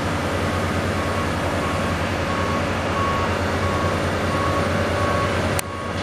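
Caterpillar excavator's diesel engine running steadily close by, with a backup alarm beeping about one and a half times a second. The sound drops abruptly near the end, and the beeping goes on.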